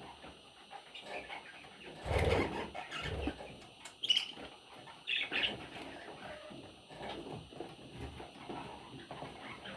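Baby budgerigars stirring in the nest, with scratchy rustling and shuffling throughout. There is a louder rustle about two seconds in and a couple of short high chirps near the middle.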